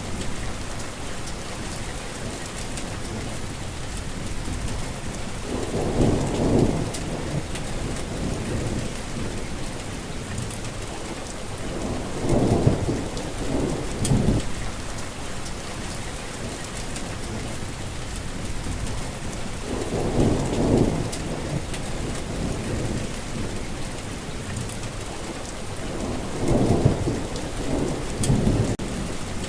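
Heavy rain falling steadily, with four low rolls of thunder swelling and fading, spaced roughly seven seconds apart.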